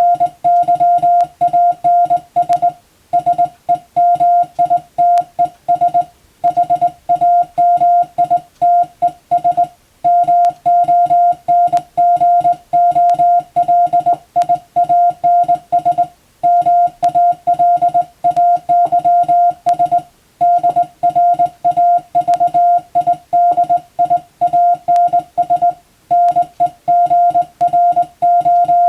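Morse code (CW) sent as a single mid-pitched beep keyed on and off in rapid dots and dashes, with short pauses between words.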